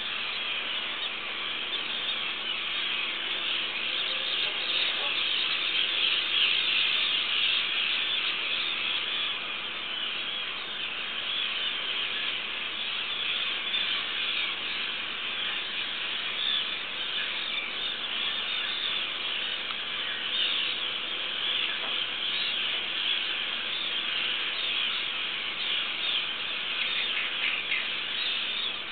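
A dense, unbroken chatter of many birds calling at once, high-pitched and continuous, as from a nearby seabird colony.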